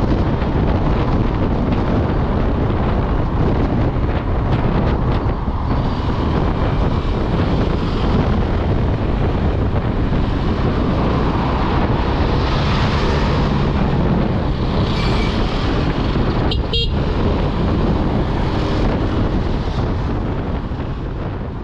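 Steady, loud road and traffic noise from a motor vehicle on the move, easing off slightly near the end.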